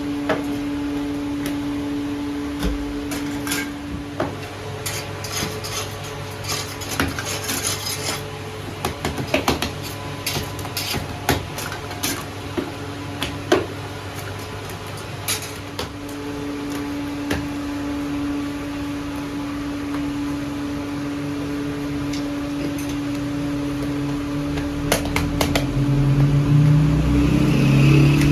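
Irregular clatter of short knocks and clinks, like cookware and utensils being handled, over a steady low hum; the clatter is busiest in the first half, and a louder rumbling sound builds near the end.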